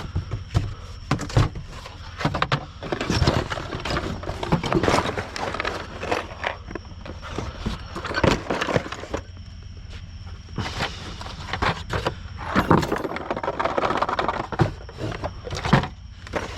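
Metal door handles clinking and clattering as they are gathered up and handled, with many sharp knocks and rattles coming irregularly.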